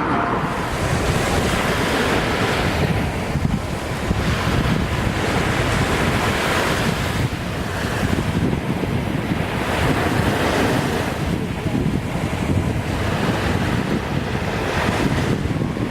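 Ocean surf washing ashore in swells every few seconds, with wind buffeting the microphone.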